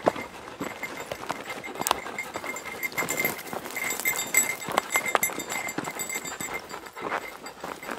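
Footsteps and pack goats' hooves scuffing and crunching on a dry gravel trail, an uneven run of clicks and scrapes with a few sharper knocks.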